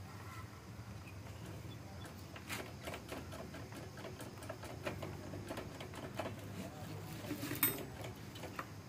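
Scattered light clicks and taps of hands handling the brake hose fitting and bleed tube on a motorcycle's rear brake caliper, with one sharper click near the end.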